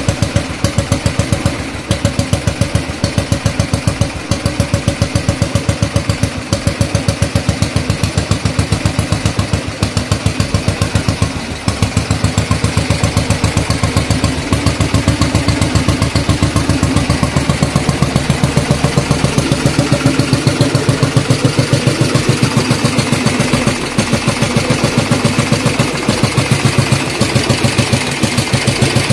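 1953 Matchless G3LS's 350 cc single-cylinder four-stroke engine idling steadily with an even exhaust beat.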